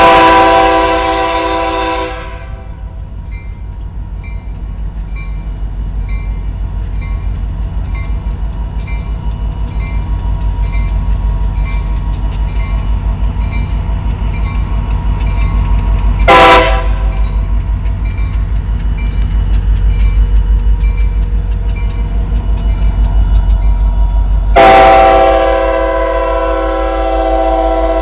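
CSX diesel freight locomotive's air horn sounding a grade-crossing signal: a long blast at the start, a short blast midway and another long blast near the end. Under it, the locomotive's engine rumble and the train's running noise grow as it nears, with a crossing bell ringing steadily.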